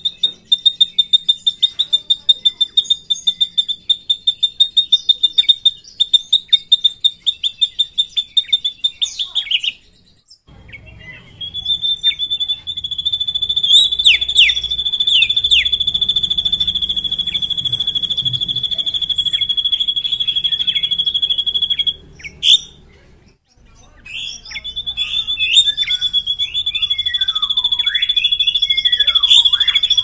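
Drongo singing a long rolling trill. First comes a fast, steady series of high notes. After a short break comes a long, unbroken high trill with a few downward-sliding notes over it. It stops briefly and starts again near the end.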